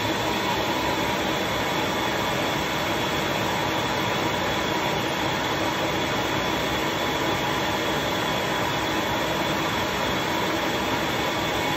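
A motor running steadily: an even whooshing hum with a thin high whine, unchanging throughout.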